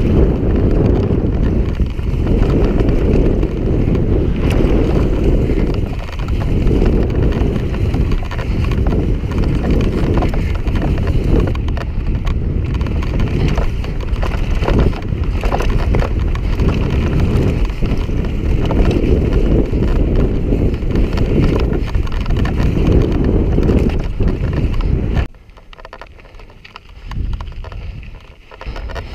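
Wind buffeting a helmet camera's microphone while a mountain bike descends a rough dirt trail at speed, with the rattle of the bike over the ground. About 25 seconds in the rush drops away suddenly and it turns much quieter.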